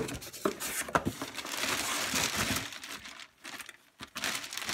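Handling noise: a few sharp clicks, then about a second and a half of loud rustling and crinkling, then a few scattered clicks.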